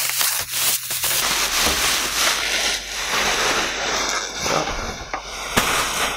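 Bubble wrap being pulled off and crumpled: a loud, continuous crinkling and crackling of plastic film, with a sharp crack near the end.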